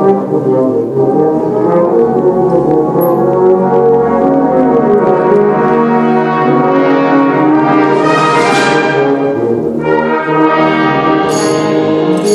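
Salvation Army brass band playing the accompaniment to an E-flat tuba solo. The band swells to a loud peak about eight to nine seconds in, and a few sharp percussion strokes come near the end.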